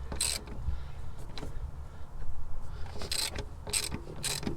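Ratchet wrench clicking in short back-and-forth strokes, about two a second, while the power steering pump's drive belt is tensioned. There is a pause in the middle, and then the strokes resume.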